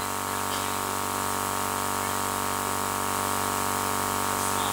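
Steady background hum of several even tones with a hiss over it, unchanging throughout: the noise floor of the amplified hall and its sound system while the preacher is silent.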